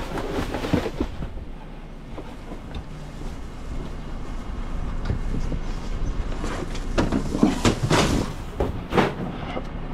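Rear-loading refuse truck's engine running steadily, with a run of sharp knocks and clatters about seven seconds in.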